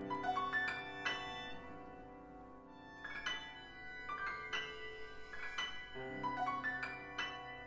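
Contemporary chamber music played live: piano and tuned percussion strike sparse chords and single notes that ring on and overlap, over a held low tone. The attacks come in loose groups every second or two.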